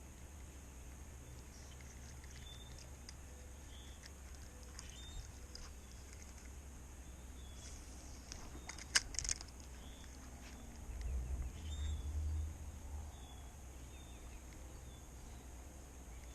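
Quiet lakeside outdoor ambience with a small bird chirping over and over, a brief burst of clicks about nine seconds in, and a low rumble soon after.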